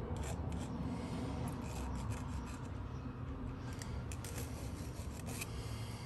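Small needle file rasping back and forth across the bit of a barrel key in steady sawing strokes, rounding off its edge.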